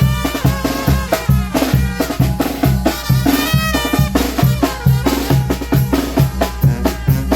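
Mexican banda music playing a ranchera: a melody over a steady repeating bass and drum beat.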